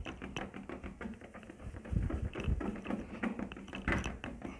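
Wad of cotton waste scrubbed hard over a Fiat Uno's plastic headlight lens, buffing off polishing compound to clear its yellowing: a quick, irregular run of rubbing strokes and light taps, with a couple of dull thumps about two and four seconds in.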